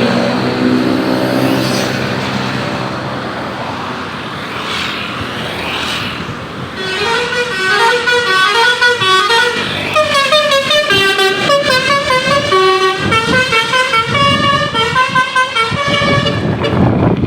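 A heavy engine runs amid traffic noise, then from about seven seconds in a tour bus's 'telolet basuri' multi-trumpet musical air horn plays a fast tune of several notes at once, stepping up and down, until the end.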